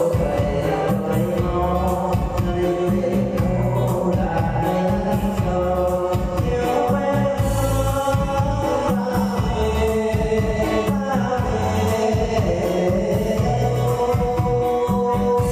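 A voice singing a melody over a backing track with a steady, pulsing bass beat.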